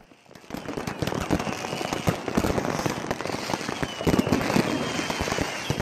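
Many New Year's fireworks and firecrackers going off at once: a dense, rapid crackle of small bangs with some louder bangs, starting about half a second in. A faint high whistle runs over it from about two seconds in.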